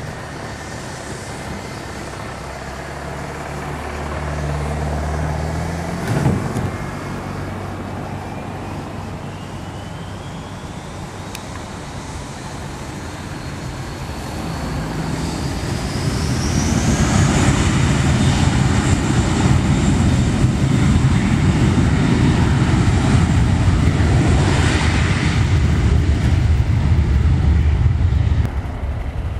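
Twin jet engines of a Monarch airliner spooling up for takeoff. A whine climbs steadily in pitch over several seconds, then gives way to a loud, steady roar at takeoff thrust.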